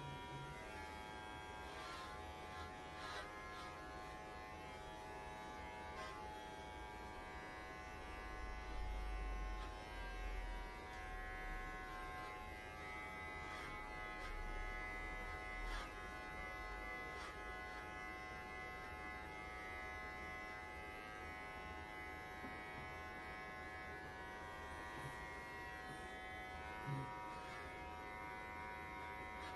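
Handheld electric pet clippers running with a steady buzz while trimming a Welsh Corgi's fur around the head and ears. A low rumble rises for several seconds midway.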